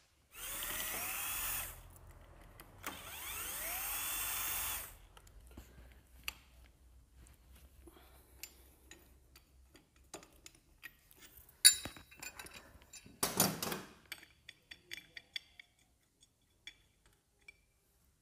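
A power tool runs in two short bursts, its motor pitch rising as it spins up, while the clutch housing of a Pulsar motorcycle is being taken apart. Scattered metallic clicks and knocks follow, with one sharp knock about twelve seconds in and a brief rattle just after.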